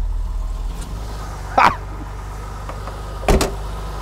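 BMW E21 323i's 2.3-litre straight-six with K-Jetronic injection idling steadily just after a cold start in near-freezing weather, on a newly working cold start injector. A short sharp sound comes about a second and a half in, and the driver's door is shut about three seconds in.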